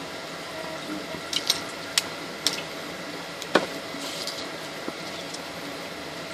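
A handful of light, sharp clicks and taps, irregularly spaced, from small tools and plastic rivet parts being handled on a workbench, over a steady background hum.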